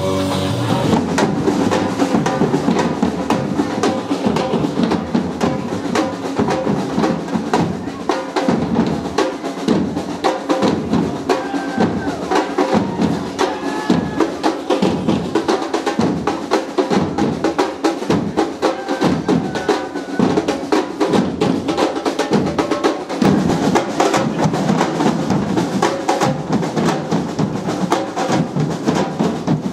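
Samba band drumming: a steady deep bass-drum pulse under dense snare and other hand-held percussion, played on the move.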